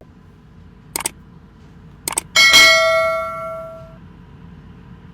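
A bell struck once, ringing at several pitches and fading out over about a second and a half. It is preceded by a few short clicks.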